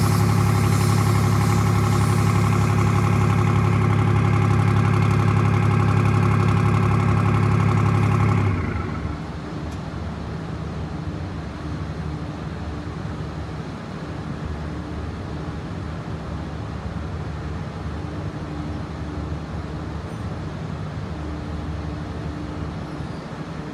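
Nodwell tracked carrier's engine idling steadily, then cutting off sharply about eight and a half seconds in, leaving a quieter steady hum.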